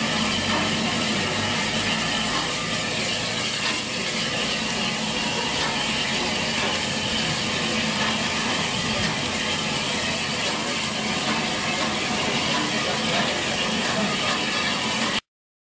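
Steam locomotives standing at rest, letting off a steady hiss of steam. The sound cuts out completely near the end.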